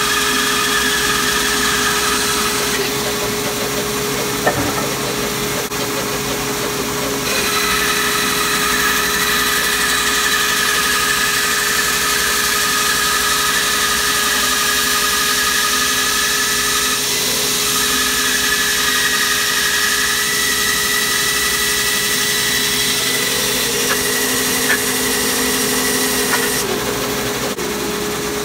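Bandsaw running steadily while resawing a thick block of old oak beam. The blade's cutting whine shifts in pitch and strength as the wood is fed through, then drops away near the end as the cut finishes.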